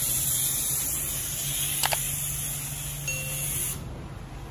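Pressure-washer lance spraying a car: a steady high hiss that cuts off suddenly near the end, over a low steady hum. There is one sharp click about two seconds in.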